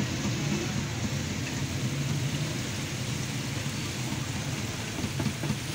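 Steady hiss of a busy roadside food stall over a low, constant motor-like hum, with no distinct events.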